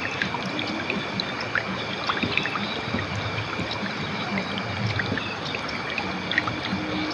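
River water flowing over stones: a steady rush with many small splashes and drips.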